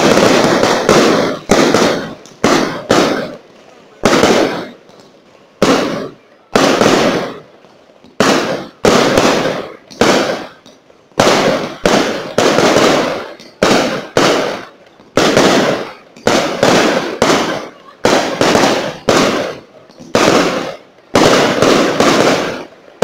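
Aerial fireworks display: shell bursts going off in quick succession, about one a second, each sharp bang fading off over a fraction of a second.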